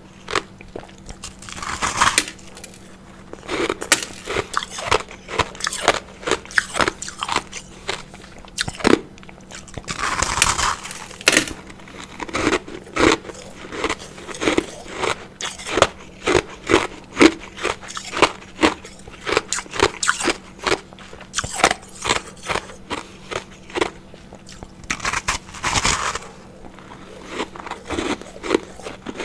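A person biting and chewing ice close to the microphone: a steady run of sharp crunches, about one or two a second. Three times a longer, hissier crunch stands out.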